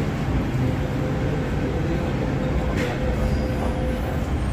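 MTR M-Train electric multiple unit running along the platform behind the platform screen doors: a steady rumble of the train in motion, with a faint steady whine held through most of it.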